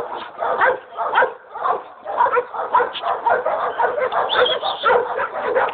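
Dogs barking over and over, about two or three barks a second.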